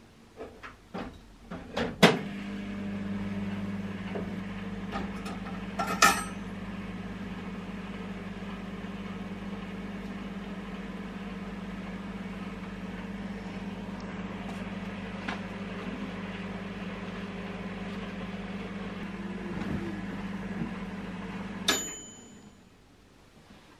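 Small microwave oven with a dial timer being set going: a few clicks of the door and dial, then a steady low hum as it runs for about twenty seconds, stopping near the end with a short high ding as the timer runs out.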